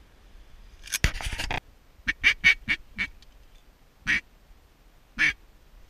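Duck quacking, loud and close: a quick run of about five quacks, then two single quacks about a second apart. About a second in there is a short loud burst of rustling noise.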